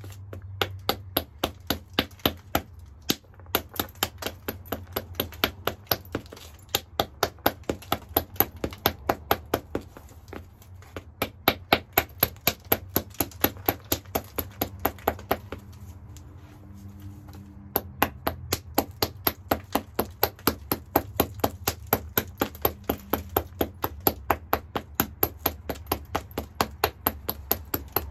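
A small hand stone tapping along the edge of a hornstone (chert) biface held on a leather pad: a long run of sharp, light clicks, about four a second, breaking off briefly three times.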